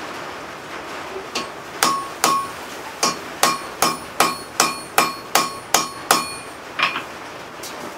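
Hand hammer striking a slit punch driven into a red-hot railroad spike on the anvil: about a dozen blows at a steady two to three a second, each with a short metallic ring. The first blow lands about a second and a half in, and the last two come more slowly near the end.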